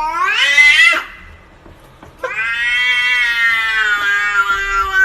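A cat yowling: a call that rises in pitch and breaks off about a second in, then a long drawn-out yowl, a little after two seconds in, that slowly falls in pitch.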